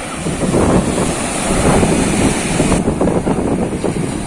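Wind buffeting the microphone over the steady wash of sea waves breaking on a sandy beach.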